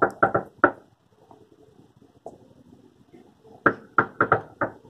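Knocking on a front door: a quick run of about five knocks at the start, then a second run of about five knocks near the end.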